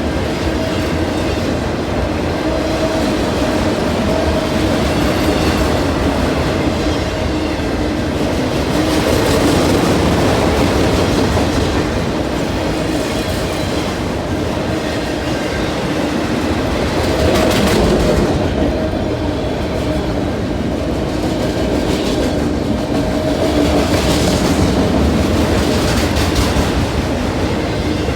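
Freight train of auto-rack cars rolling past close by: a steady rumble and wheel clatter, with a steady tone running underneath and the clatter swelling louder now and then.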